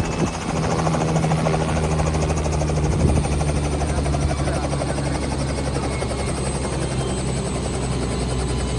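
Helicopter running close by, its engine holding a steady pitch under the rapid, even chop of the rotor blades.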